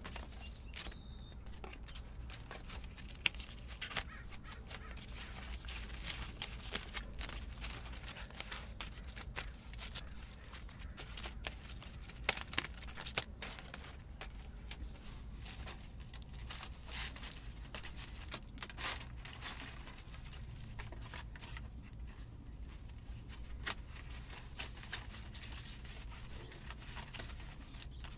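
Dry cattail leaf strips rustling and crackling as they are woven by hand over and under one another, with many irregular sharp clicks, over a steady low hum.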